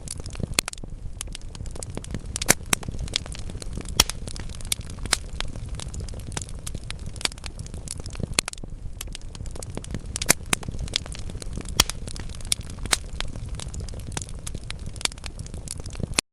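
Wood logs burning in a fireplace, crackling steadily with frequent sharp pops, a few of them louder, over a low steady rumble of the fire.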